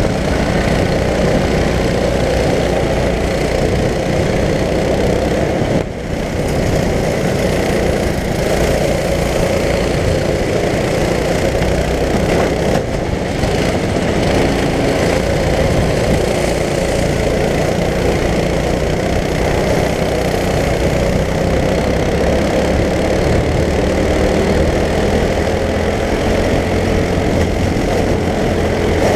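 Racing go-kart engine running hard, recorded close up on the kart itself, its note wavering up and down with the throttle through the corners. Level dips briefly about six seconds in.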